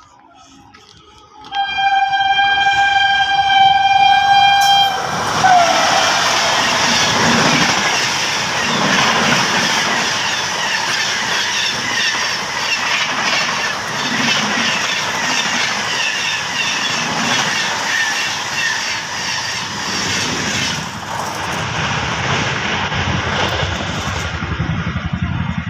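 Express train's locomotive horn sounding one long steady blast of about three and a half seconds, then dropping in pitch as the engine passes. The train then runs loudly past for the rest of the time, its coaches clattering over the rails.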